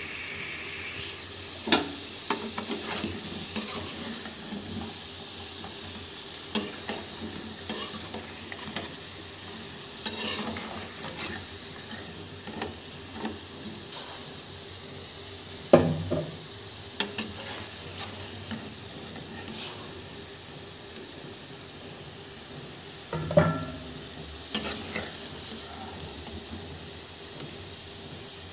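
Browned potato cubes frying in mustard oil in a karahi, giving a steady sizzle. A metal spatula scrapes and clicks against the pan as the pieces are stirred and lifted out, with a few louder knocks now and then.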